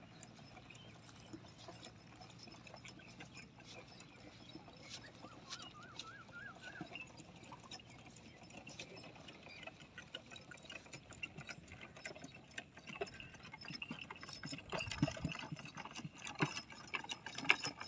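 Donkey cart approaching on a dirt track: irregular clopping of the donkey's hooves and rattling knocks from the cart, growing louder toward the end.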